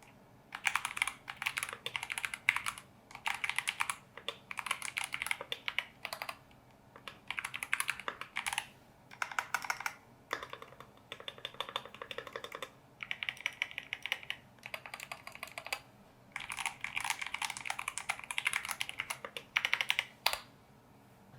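Mechanical keyboard with Gateron G Pro Silver linear switches being typed on in quick runs of keystrokes with short pauses between them; the typing stops near the end.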